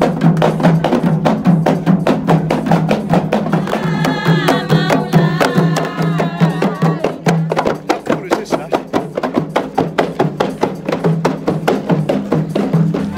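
A group of hand-held Malay frame drums (kompang) beaten together in a fast, steady rhythm. Voices rise over the drumming from about four seconds in for a few seconds.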